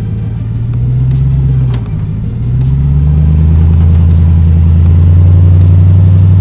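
Ram TRX pickup's V8 engine revving under load on an off-road climb. The pitch rises, drops about two seconds in, climbs again, then holds high and steady.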